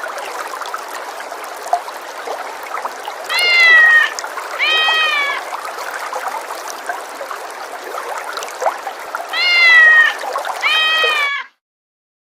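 A domestic cat meowing four times, each meow about two-thirds of a second long and falling in pitch at the end. The meows come in two pairs, one about three to five seconds in and one about nine to eleven seconds in, over a steady background hiss. All sound cuts off suddenly near the end.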